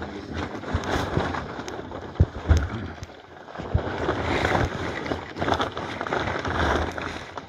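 A small wooden sailboat being rowed with long oars from a sliding seat: water washing and gurgling around the hull and oar blades, with irregular knocks from the oars and gear, and wind on the microphone.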